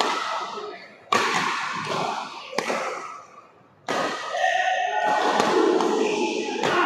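Badminton rally: rackets striking the shuttlecock, with sharp hits about a second and a half apart that echo through the sports hall, and voices behind them.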